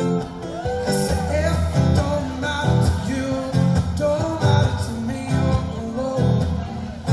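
Live guitar music, a solo performer's guitar played steadily.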